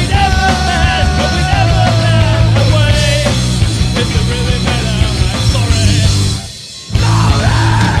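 Rock music with a steady beat and a wavering melody line; it drops away briefly about six and a half seconds in, then comes back in full.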